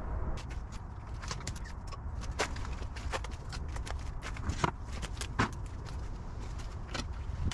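Footsteps and rustling in dry leaf litter and garden debris, with scattered clicks and light knocks as things are picked up and moved.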